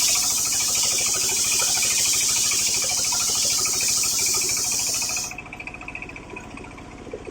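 Homemade circular saw rig cutting through coconut-palm timber: a loud, even hissing rip of the blade in the wood over the steady beat of the engine driving it. The cut ends about five seconds in and the engine runs on alone.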